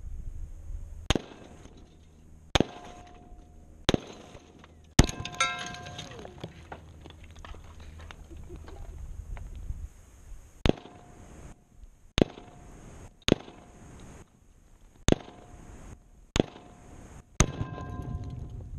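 Gunshots fired at a target, about a dozen sharp cracks one to two seconds apart, several with a short metallic ringing after. About five seconds in comes the loudest blast, a low rumble running on for several seconds after it with a brief falling whine: the Tannerite charge in the target detonating.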